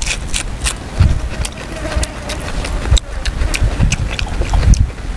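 Close-up eating sounds: wet chewing and lip-smacking on soft stewed pork, heard as a run of short, sharp mouth clicks. Under them is a low rumble of wind on the microphone.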